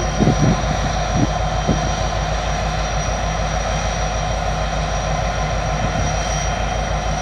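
EMD SD60M diesel locomotive's 16-cylinder 710 engine running steadily as it slowly shoves a train, a continuous low diesel rumble. A few brief knocks sound in the first two seconds.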